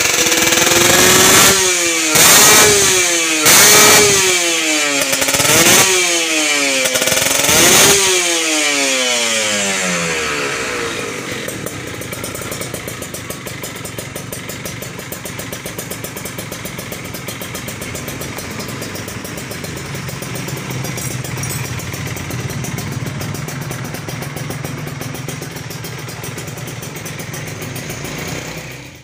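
Kawasaki Ninja RR 150 two-stroke single-cylinder engine blipped about five times, its pitch rising and falling with each blip, then settling to a steady idle about ten seconds in, during a tune-up.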